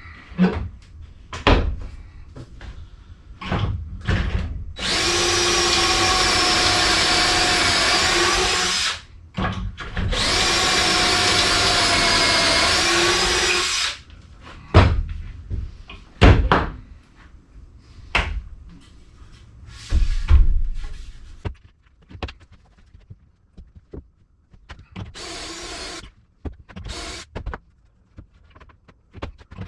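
Drill running through a Kreg pocket-hole jig, boring pocket holes in wood for the door frame joints: two steady runs of about four seconds each, with knocks and clatter between and after, and a shorter, quieter run near the end.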